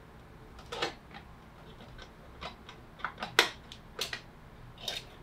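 Metal parts of a hand-crank Weston tomato strainer clicking and clinking as the berry-screen housing is fitted and turned into place on the body: a string of irregular sharp clicks, the sharpest about three and a half seconds in.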